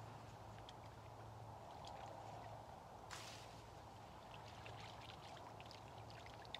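Faint sloshing and trickling of water as a fishing landing net is worked in the river and lifted out, with one sharper splash about three seconds in.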